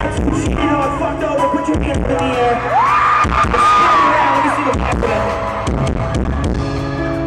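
Live band playing loud amplified music with drum hits and a sung or synth melody line that rises and holds in the middle, recorded with poor, distorted sound.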